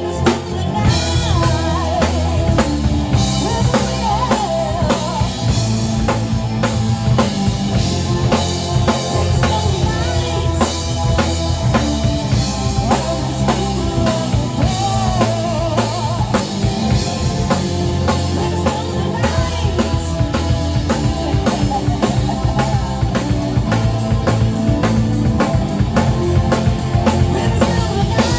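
Live rock band playing at full volume: a drum kit keeps a steady beat with bass drum and snare on top, under electric guitars and bass, with a wavering lead melody line above.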